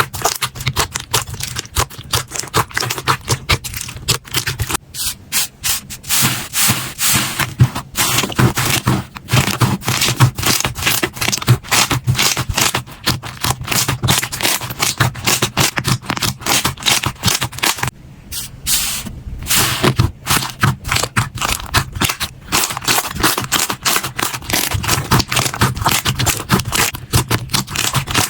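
Hands squeezing, poking and stretching slime, a dense run of quick crackles and pops with brief lulls about five and eighteen seconds in.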